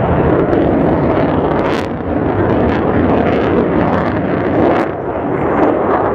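Mitsubishi F-2A fighter's single F110 turbofan engine giving a loud, steady jet roar as the aircraft pulls a hard turn, with a few short sharp clicks on top.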